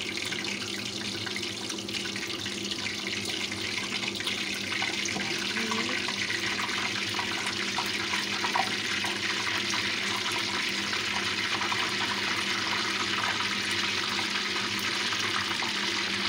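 Egg-coated, milk-soaked bread (torrija) frying in hot sunflower oil: a steady sizzling hiss that grows a little louder about four seconds in.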